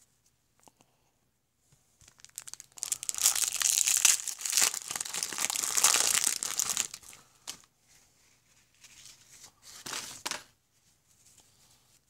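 A paper baseball card pack being torn open, its wrapper crinkling loudly for about four seconds, then softer rustling with a brief crinkle near the end.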